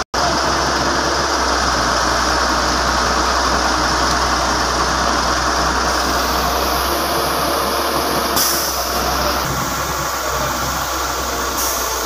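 Diesel engines of a working excavator and a dump truck running steadily. The sound drops out for a split second right at the start.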